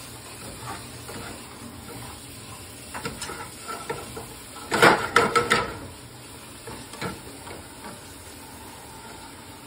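Swiss chard sautéing in a skillet with a steady soft sizzle while a silicone spatula stirs it; a quick run of scrapes and knocks of the spatula against the pan about five seconds in is the loudest part.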